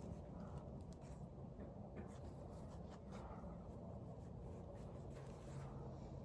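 Faint rustling and rubbing of hands handling an object, with a few soft clicks, over a low steady hum.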